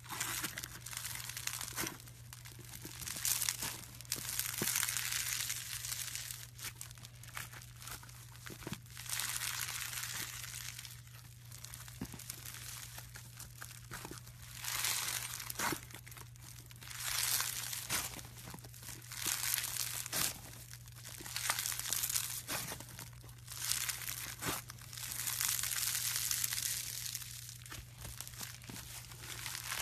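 Crunchy pink slime squeezed, stretched and pulled apart by hand, starting with foam-bead slime (floam). It gives repeated crackling, crinkling crunches in bursts of a second or two. A steady low hum runs underneath.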